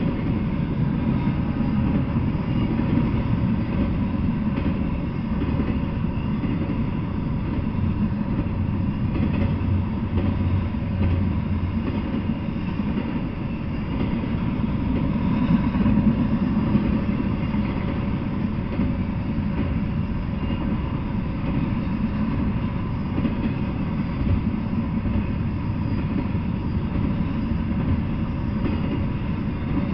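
Double-stack intermodal freight train rolling past at a steady speed: a continuous low rumble of steel wheels on the rails.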